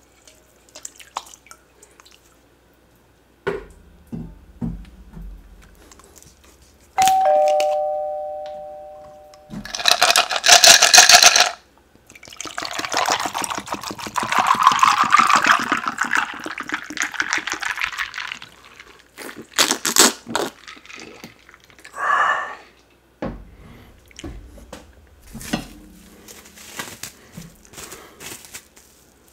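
A doorbell-style two-note ding-dong chime sounds about seven seconds in and fades away, with a SUBSCRIBE button animation. Several seconds of loud rushing noise follow. Near the end, the plastic wrap around a ball of fufu crinkles as it is handled.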